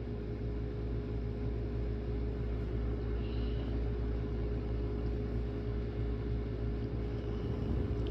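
Steady low background rumble with a faint constant hum, unchanging throughout.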